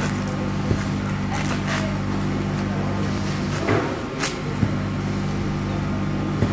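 Steady low mechanical hum of workshop machinery, with a few short scrapes and knocks as a hand squeegee is drawn back and forth across a screen-printing screen.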